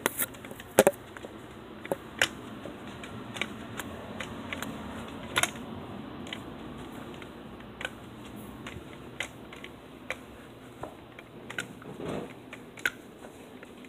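Crutches clicking and knocking with each swing-step, sharp irregular clicks about once a second. The phone is held against a crutch, so the crutch's rattles and taps come through close and loud.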